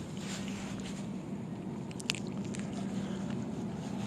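Wet, squishy handling noises of a freshly caught, flopping bluegill being held and unhooked, with a few sharp clicks about two seconds in, over a steady low hum.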